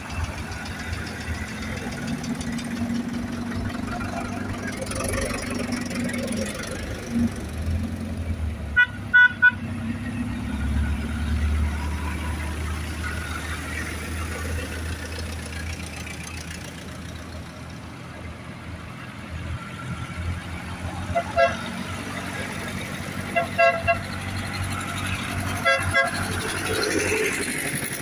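Vintage tractor engines running steadily as a line of tractors drives past. Horns toot in short blasts: a quick burst of three about nine seconds in, then pairs of toots again and again in the last third.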